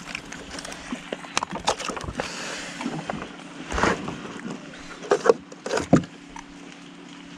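A freshly landed silver croaker flapping on the plastic deck of a sit-on-top kayak: a series of knocks and thumps, loudest about four, five and six seconds in, over a steady low hum.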